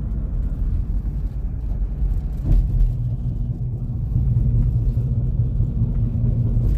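Car driving at road speed, heard from inside the cabin: a steady low rumble of tyres and engine, with a brief thump about two and a half seconds in.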